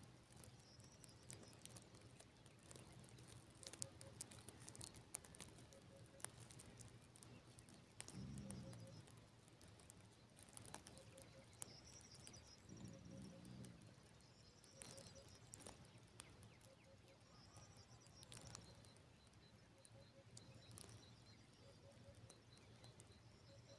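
Near silence: faint outdoor ambience with small bird chirps repeating every second or two, scattered soft ticks, and two brief low rustles.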